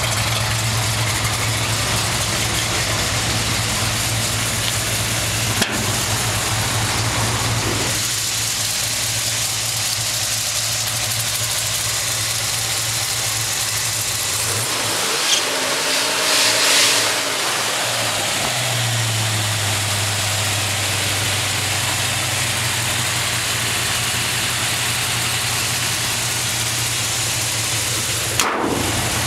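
The 450-horsepower V8 of a restored 1971 Chevrolet C-10 pickup idling steadily, with one brief rev that drops back to idle about halfway through.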